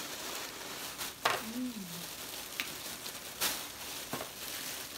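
Plastic oven bags crinkling and rustling as hands dig through a seafood boil, with a handful of sharp snaps from crab-leg shells being cracked. A short "mm" from a voice comes about a second and a half in.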